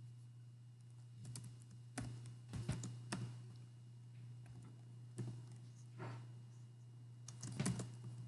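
Computer keyboard being typed on: scattered key clicks in short irregular clusters. A steady low hum runs underneath.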